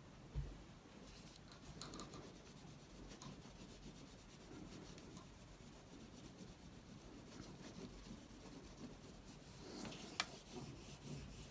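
Oil pastel rubbing and scratching faintly across paper coated in poster paint. A low thump about half a second in and a sharp click near the end.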